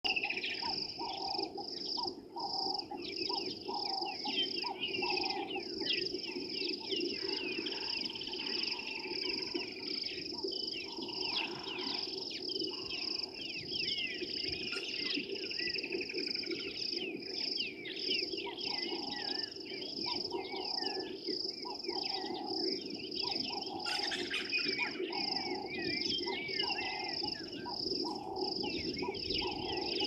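Several wild birds chirping and warbling, busiest about halfway through and again near the end, over a steady high insect drone and a low steady chorus.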